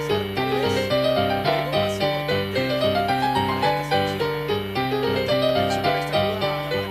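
Lively solo piano music in an old silent-film style: a steady bouncing bass under a melody that runs up and down.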